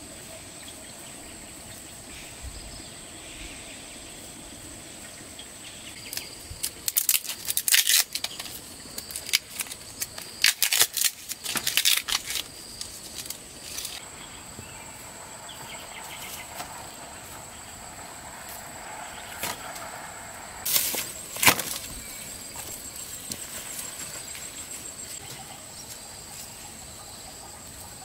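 A steady high-pitched insect drone, with bursts of sharp clicks and knocks: a dense run for several seconds about a quarter of the way in, and a few more about three quarters of the way through.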